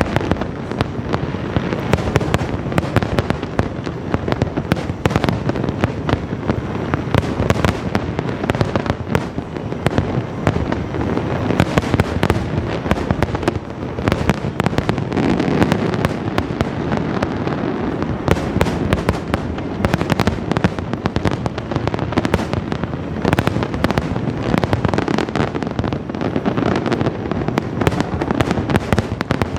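Aerial fireworks in a dense, unbroken barrage: many bangs overlapping, several a second, with no let-up.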